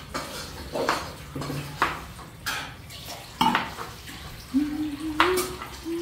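Kitchen pots, pans and cutlery clattering: a string of separate knocks and clinks, with a low held hum for about two seconds near the end.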